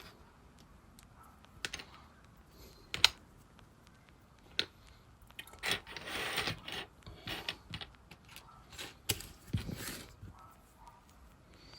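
Scattered sharp plastic clicks from keys and keycaps on a keyboard with ALPS key switches, coming irregularly rather than in a steady typing rhythm. There is a brief scraping rub about six seconds in, and the sharpest click is about three seconds in.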